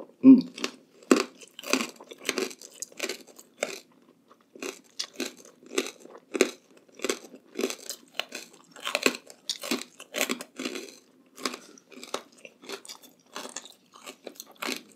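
Close-miked chewing of crunchy food: an irregular run of crisp crunches, a little over one a second.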